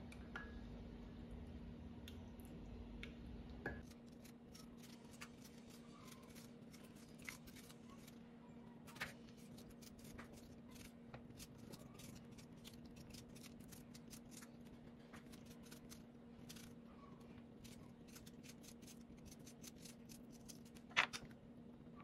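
Soft kitchen handling sounds: a wooden stick stirring and tapping against a glass measuring jug and hands squeezing tomato flesh into it, heard as scattered small clicks and taps, with one sharper tap near the end. A faint steady hum runs underneath.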